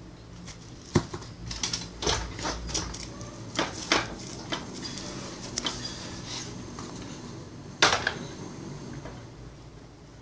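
Irregular knocks and clatters of a pink duster's plastic handle as a baby bangs it against a door and the floor, about ten hits, with the sharpest about a second in and near the end.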